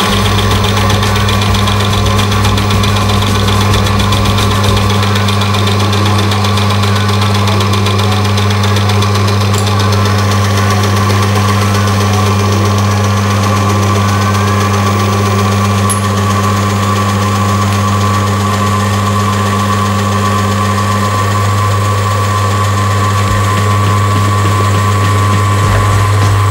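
Electric motor of an oil friction-test machine starting up and then running with a steady hum, turning its test ring in mineral oil treated with an additive while under a growing load of weights. There is no screeching, the sign that the oil film is holding under the pressure.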